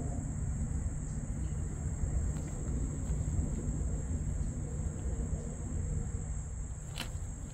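Steady, high-pitched insect buzz over a continuous low rumble, with one sharp click about seven seconds in.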